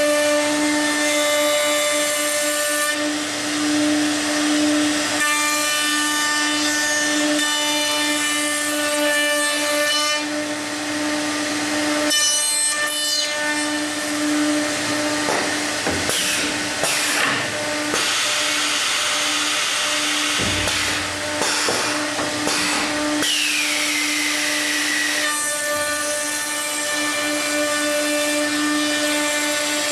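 The two 5-horsepower high-speed router motors of a CSR-750CNC stair router running at a steady whine while their dovetail bits rout housings into the left and right stair stringers. The cutting noise grows heavier and rougher in stretches as the bits move through the wood, and a falling whine comes about three-quarters of the way through.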